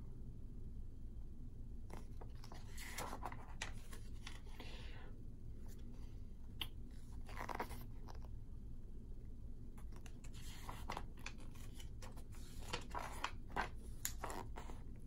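Pages of a paper booklet being turned and handled, rustling and crinkling in short spells every few seconds, over a low steady hum.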